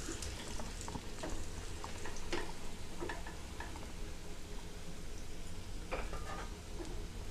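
Bread pakoras frying in oil in a nonstick pan, a low sizzle, with scattered light clicks and scrapes of a slotted spoon and fork against the pan as the fried pieces are turned and lifted out.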